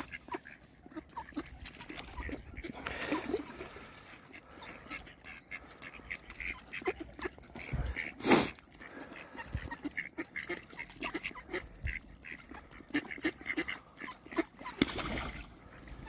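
Mallard ducks quacking in short, scattered calls as they feed on seed. About eight seconds in there is one brief, loud burst of noise.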